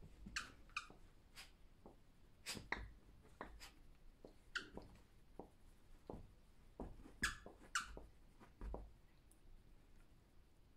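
Faint, irregular short scratching and rubbing sounds as a hand pets and scratches a Chinese Crested dog's bare skin and long head hair.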